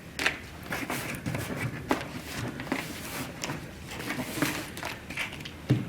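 Rustling and crinkling of contact paper and cardboard being handled, with scattered small taps and clicks and a louder bump just before the end.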